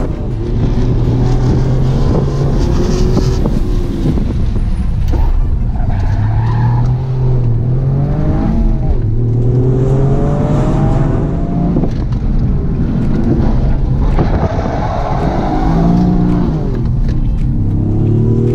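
Toyota GR Yaris's turbocharged 1.6-litre three-cylinder engine heard from inside the cabin, driven hard: the engine note rises and drops back several times as the car accelerates, shifts and slows.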